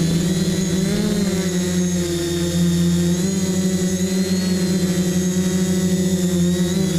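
FPV quadcopter's electric motors and propellers whining steadily, the pitch dipping and rising slightly a few times with throttle changes as the quad flies low.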